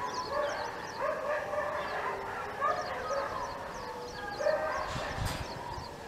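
Overlapping animal calls: short high chirps repeating several times a second over lower calls that bend up and down in pitch, with a low thump about five seconds in.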